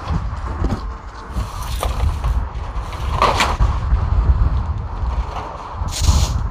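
Knocks and clatter as a shrink-wrapped dishwasher is wheeled on a hand truck over a truck's liftgate, several sharp knocks spread through, over a steady low rumble.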